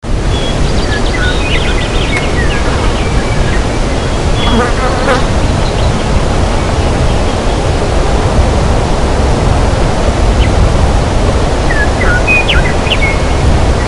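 Forest ambience: a steady loud hiss and rumble with birds chirping over it, in clusters over the first few seconds and again near the end, and a short rising call about five seconds in.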